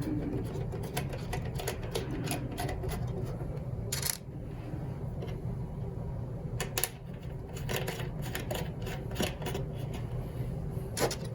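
Irregular small clicks and knocks of a circuit board and its mounting parts being handled and fitted back into a filtration unit's cabinet, with a few louder knocks, over a steady low background hum.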